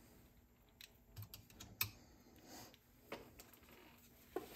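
Faint, scattered small clicks and light taps of small parts and tools being handled on a cassette deck under repair, about eight in all, the sharpest about two seconds in.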